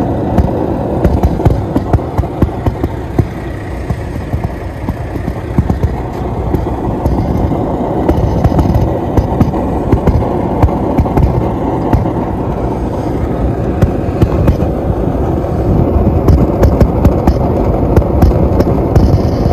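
Propane burner flame of an RV absorption fridge, a steady rush with frequent sharp pops and crackles. The flame is uneven, which the owner puts down to inconsistent fuel delivery and a tank that may need purging.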